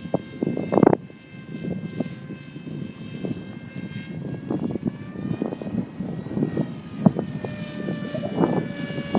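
Electric motor and propeller of a Dynam Hawk Sky V2 RC glider whining in flight, the pitch sliding slowly down and then shifting again near the end. Gusty wind buffets the microphone throughout, loudest just before a second in and again near the end.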